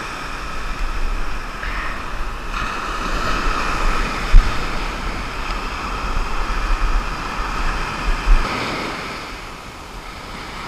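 Ocean surf breaking and washing up a sand beach, with wind buffeting the microphone. A sharp thump on the microphone comes about four seconds in.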